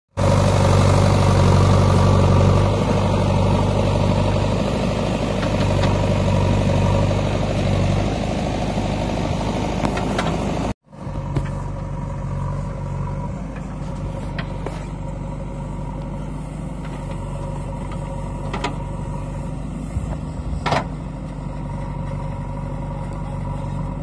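JCB 3DX backhoe loader's diesel engine running steadily while the backhoe digs, louder and closer at first, then a little quieter after a momentary break. A couple of sharp knocks come near the end.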